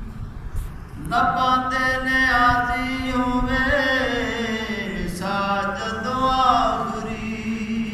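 A man chanting a Punjabi naat without instruments, in two long drawn-out phrases whose pitch glides and turns, over a steady low drone.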